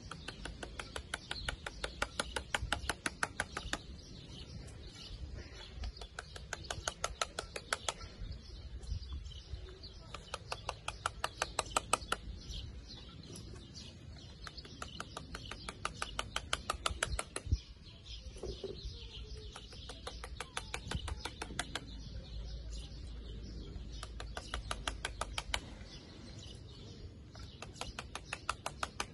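Paintbrush scrubbed and dabbed quickly against a concrete decorative-stone curb, in fast runs of short scratchy strokes a few seconds long with pauses between them.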